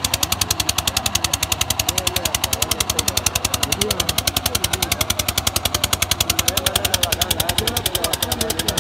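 Engine running with a fast, even chugging beat, about a dozen pulses a second, with faint voices underneath.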